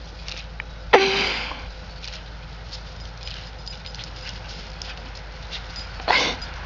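A dog barking twice in the snow, once about a second in and once near the end.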